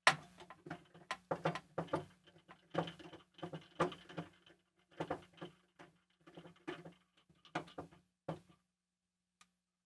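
Irregular small metallic clicks, taps and light rattles as a rack-mount ear and its screws are handled and fitted against the metal side of a Shure SLX-D wireless receiver, about two or three a second.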